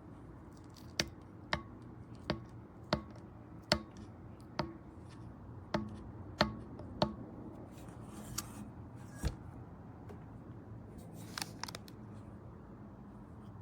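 About a dozen sharp clicks or taps, roughly one every two-thirds of a second, some with a slight ring, stopping about nine seconds in, with a few faint ticks later.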